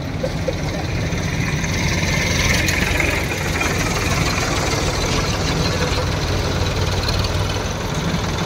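Heavy diesel engines of a Powertrac farm tractor and a JCB backhoe loader idling steadily at close range, briefly a little louder about two to three seconds in.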